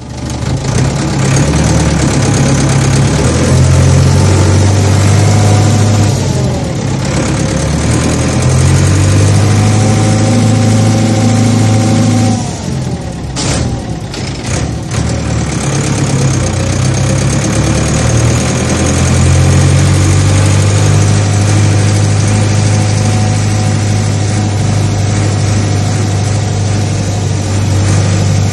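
A farm machine's diesel engine running steadily under load. Its revs sag and pick back up about six seconds in, and again a little before the middle, with a short click at that second dip.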